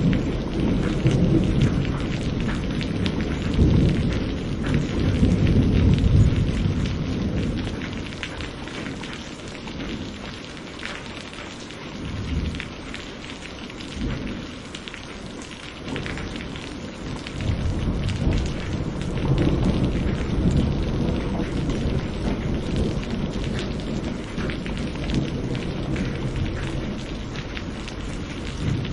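Steady rainfall with rolling thunder. A long low rumble dies away about a quarter of the way in, leaving the rain on its own, and another rumble rolls in just past the middle and carries on to near the end.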